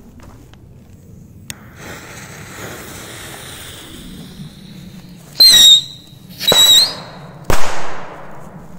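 Small stick rockets launching one after the other, each with a loud shrill whistling screech, about a second apart. A sharp bang with an echoing tail follows near the end as one bursts.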